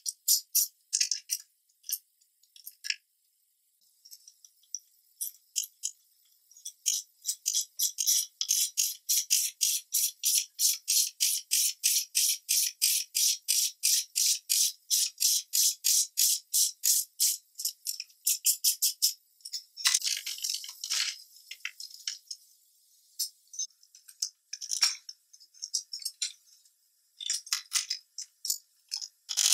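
Ratchet handle clicking in a fast, even rhythm of about four to five clicks a second as it cranks the screw of a leg vise built from an old car jack. Near the end there are a few scattered clicks and scrapes.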